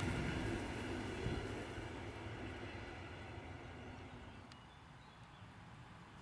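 EN61 electric multiple unit running away along the track, its rolling noise fading steadily. About four and a half seconds in, the sound drops to a much quieter background.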